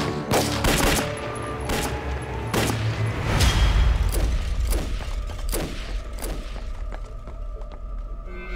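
Rifle gunfire in a firefight: a rapid, irregular volley of shots that thins out in the last couple of seconds. A deep rumble comes about three and a half seconds in, with dramatic music underneath.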